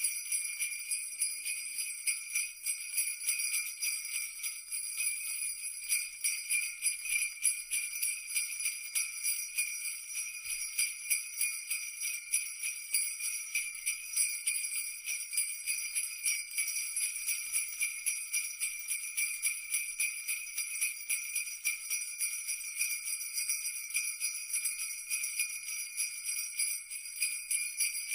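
Sleigh bells shaken steadily in a quick, even rhythm, a continuous bright jingling with no pauses.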